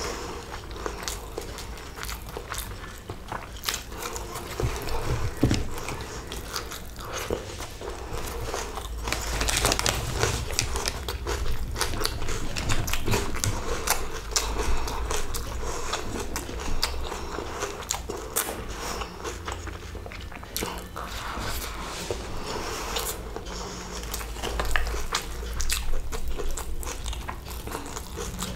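A person chewing and biting mouthfuls of chicken biryani and fried chicken 65 pieces, with many small mouth clicks and crunches all through.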